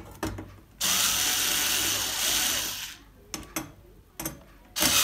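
Cordless electric screwdriver backing screws out of a TV's back panel. It runs steadily for about two seconds, a few small clicks follow, and it starts again near the end.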